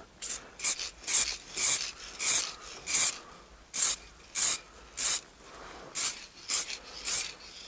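Motip aerosol spray paint can hissing in about a dozen short, uneven bursts: quick light passes laying a first coat on the most worn spots of a steering wheel.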